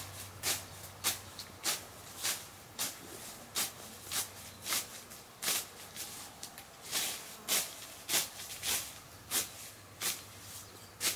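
Hand sickle slicing through weeds and grass stems, a quick rhythmic swish about twice a second.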